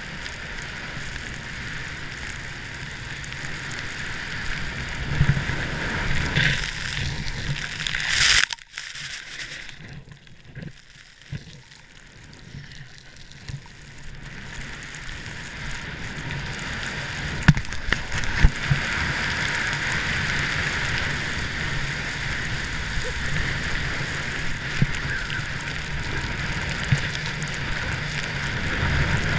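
Steady rush of wind on the microphone and the hiss of sliding fast over fresh snow, growing louder over the run. It goes quieter for a few seconds about a third of the way in, and there are a couple of sharp knocks a little after the middle.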